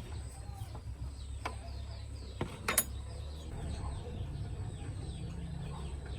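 Chickens clucking over a steady low hum, with a few sharp knocks, the loudest a little under halfway through.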